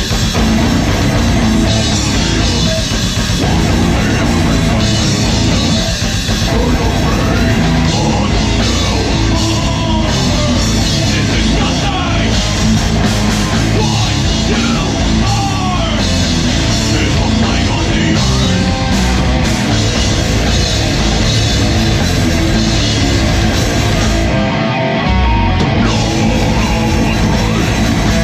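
Metal band playing live at full volume: distorted electric guitars, bass guitar and drum kit, with a vocalist singing into the microphone over them.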